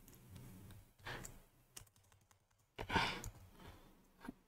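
Faint clicks of a computer keyboard and mouse, with two soft breaths, the louder one about three seconds in.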